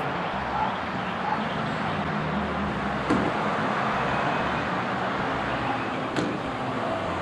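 Steady road-traffic noise as a pickup truck drives past on the street, with two sharp knocks, about three and six seconds in.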